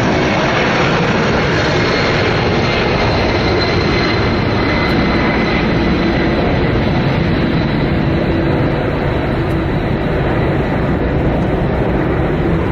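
Large fixed-wing aircraft engines running at high power: a loud, steady rush with a thin high whine, easing slightly in the second half.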